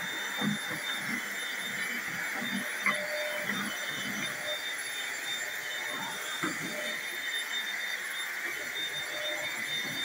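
Small corded stick vacuum cleaner running steadily with a high motor whine, its floor nozzle knocking softly against the hardwood floor and baseboard now and then as it is pushed along.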